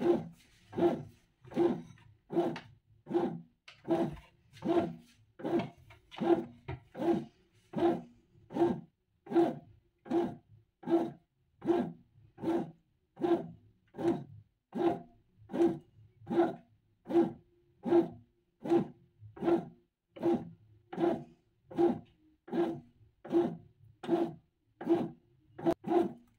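Bread machine kneading gluten-free dough: its motor drives the kneading paddle in short, even pulses, about four every three seconds, each a brief rasping hum.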